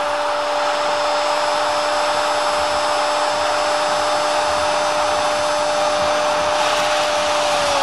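A football commentator's long goal cry, one shouted note held steady for about eight seconds and dropping away only at the end, over a stadium crowd cheering.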